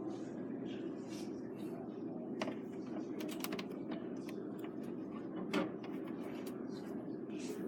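A few scattered clicks and knocks of something being handled, with one sharper knock about five and a half seconds in, over a steady low hum.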